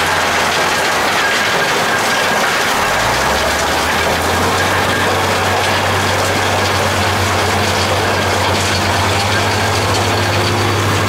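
Gold-mining trommel and sluice running: a steady low engine hum under a constant rushing, rattling wash of water and gravel. The hum shifts pitch and grows stronger about three to four seconds in.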